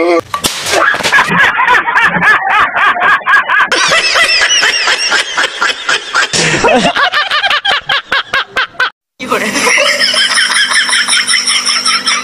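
Rapid, high-pitched laughing, pulsing several times a second, typical of a comedy sound effect. It cuts out for a moment about nine seconds in, and a steadier warbling sound follows.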